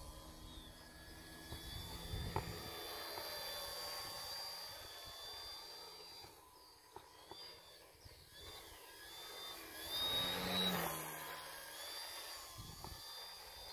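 Electric motor and propeller of a Mercury Galahad model aeroplane, a thin high whine that changes pitch as the plane flies about, growing loudest as it passes close about ten seconds in.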